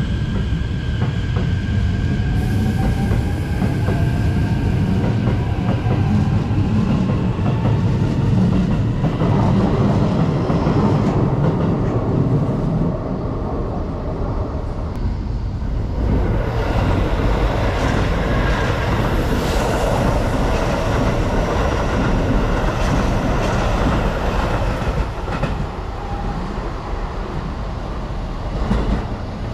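Electric commuter trains running through a station: a continuous heavy rumble of wheels on rails with clatter over rail joints. In the first several seconds a faint whine rises in pitch, as from an accelerating train's motors.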